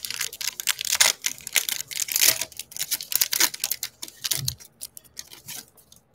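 Foil wrapper of a 2020 Topps Fire baseball card pack being torn open and crinkled in the hands as the cards are pulled out: a dense run of crackling rustles that thins out near the end.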